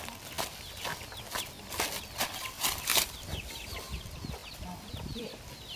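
Footsteps crunching on dry leaf litter, irregular crackles, with a run of short, falling bird chirps in the second half.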